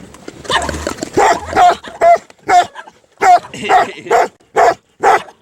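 A dog barking over and over, about nine loud, short barks at roughly two a second.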